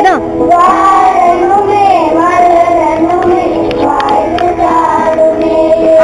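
A group of schoolchildren singing a song together in sustained, wavering lines, with electronic keyboard accompaniment.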